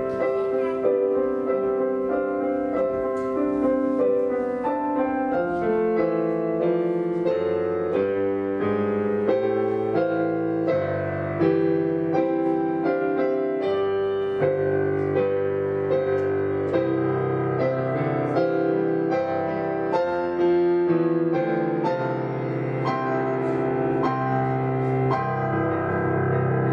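Piano playing a slow postlude: sustained chords with a melody moving over them.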